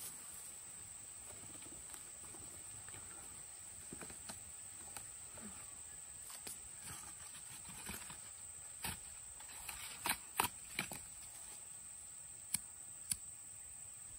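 Dry twigs, bark and cardboard crackling and snapping as they are broken and torn by hand to lay kindling, with a cluster of sharp snaps about ten seconds in and two more near the end, over a steady high insect drone.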